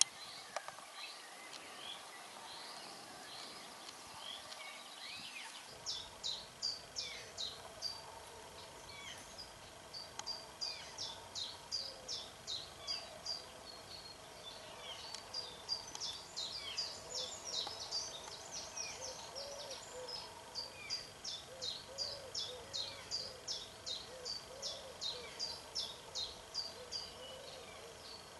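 Woodland birdsong, with one bird repeating a short high note two or three times a second from about six seconds in, over softer calls of other birds.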